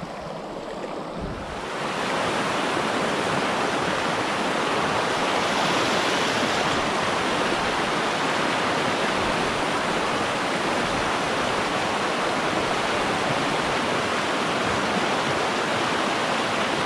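Small mountain stream rushing over rocks through riffles: a steady rush of water that grows louder about two seconds in.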